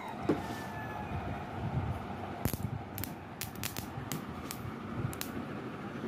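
Lexus LS430 four-pin coil-on-plug ignition coil on a bench test, its spark plug giving a string of short, irregular sharp snaps as the coil fires, over a faint steady hum. The coil is sparking properly, a sign that it is working.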